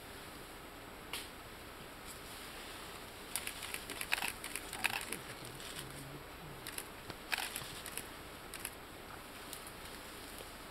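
Leafy stems and undergrowth crackling and snapping as a young mountain gorilla pulls and climbs on them: a dense run of crackles a few seconds in, then a few single snaps.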